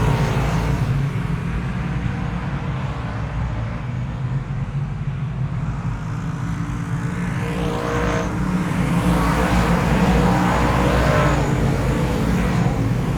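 A motor vehicle's engine running with a steady low rumble, growing a little louder about eight seconds in.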